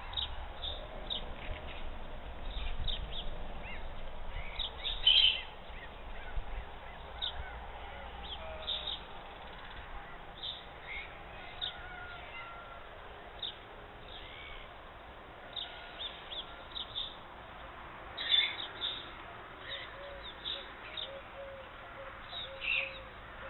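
Birds chirping and calling: many short, high chirps at irregular intervals, with a few louder bursts. A low rumble runs under the first several seconds.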